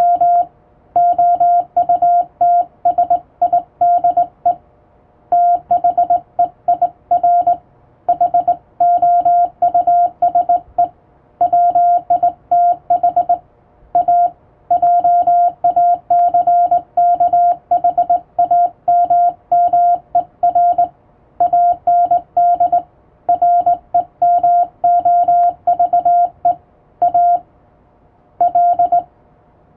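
Hand-sent Morse code on a straight key, heard as a single steady sidetone beeping on and off in dots and dashes, with short gaps between letters and words and a longer pause near the end.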